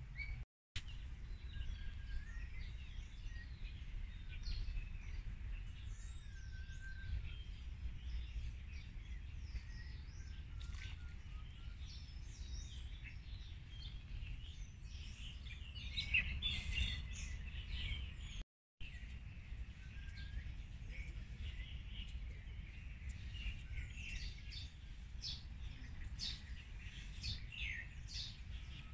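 Many small birds chirping and singing, over a low, steady background rumble. The sound cuts out briefly twice.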